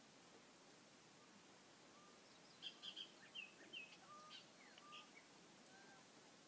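Birds chirping faintly outdoors: a quick run of short, high chirps and a few lower whistled notes in the middle, over a near-silent background hiss.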